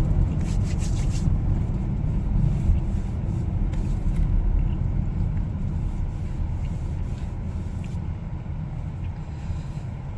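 Steady road and engine rumble inside a moving car's cabin, slowly growing quieter toward the end.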